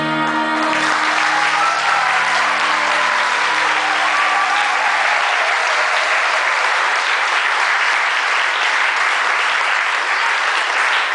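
Audience applauding loudly and steadily, the song's final held note dying away in the first second.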